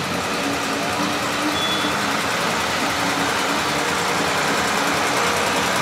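Farm tractor's diesel engine running steadily close by; the tractor is a blue Ford pulling a parade float.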